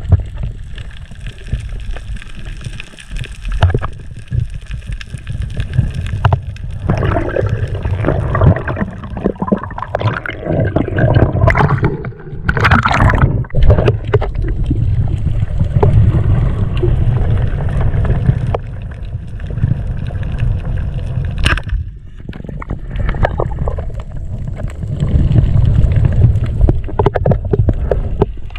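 Muffled underwater water noise heard through a diving camera housing: a steady low rumble with gurgling and sloshing, a louder rush of gurgling around the middle, and a single sharp click later on.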